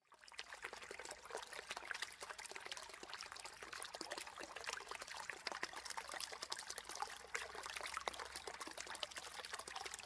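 Water running steadily into a bath, a faint trickling pour with a fine crackle of small splashes.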